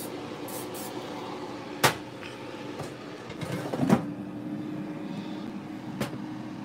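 Cookware and kitchen items being handled: a sharp knock about two seconds in, a short clatter near four seconds and a lighter click near the end, over a steady low appliance hum.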